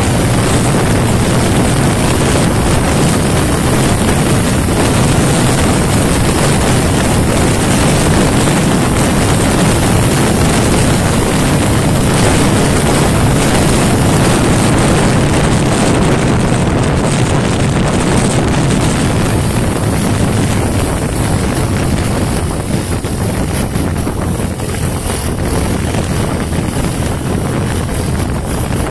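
Honda TMX 125's single-cylinder four-stroke engine running at high revs at about 120 km/h, under heavy wind rush on the microphone. The sound eases somewhat after about 20 seconds as the bike slows and the revs drop.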